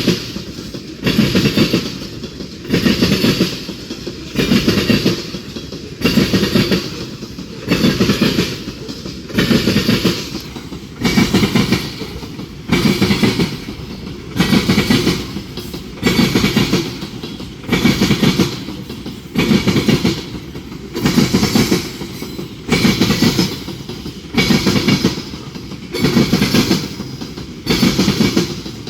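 Freight train cars rolling past, their wheels clattering over the track in loud regular bursts about every one and a half to two seconds as each set of wheels goes by.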